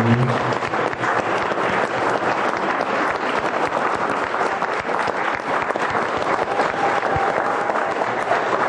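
A room full of people applauding: a steady round of hand clapping that keeps going without a break.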